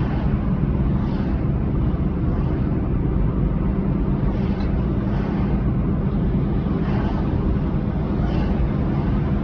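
Car driving along a city street: a steady low rumble of engine and tyre noise.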